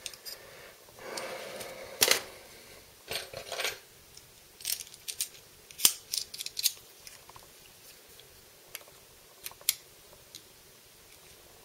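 Small metallic clicks and clatters of a precision screwdriver and its bits being handled and fitted to the screws of a folding knife, with a short rustle about a second in. The clicks come thick for a few seconds, then thin out to a few single taps.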